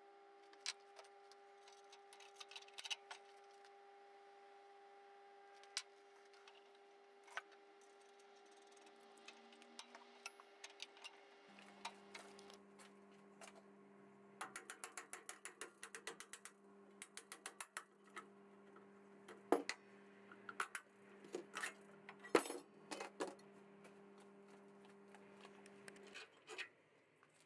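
Hand tools clicking and clinking against the motorcycle's engine crankcase and its nuts and studs during assembly, with bursts of rapid clicking around the middle and a few sharper metal knocks. A faint steady hum runs underneath, and a lower hum joins just before halfway and stops near the end.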